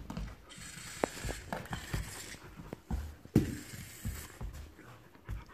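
Yellies voice-activated toy spider's small motor and plastic legs clicking and rattling as it moves on the rug. Irregular knocks come from a puppy nosing and pawing at it, with one louder thump about three and a half seconds in.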